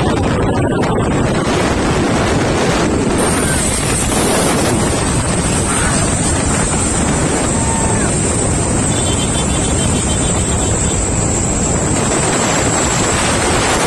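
Wind rushing over the microphone of a moving vehicle, mixed with steady road and engine noise. A thin, high steady whine joins about three seconds in.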